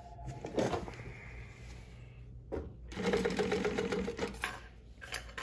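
Direct-drive walking-foot industrial sewing machine (New-Tech GC-0303D) stitching heavy fabric with thick bonded 138 thread. It sews a short, rapid run about three seconds in, with a few sharp clicks before and after.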